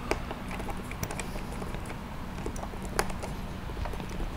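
Light clicking and rustling of wires and small plastic connectors being handled by hand, with a couple of sharper ticks, the loudest about three seconds in, over a low steady hum.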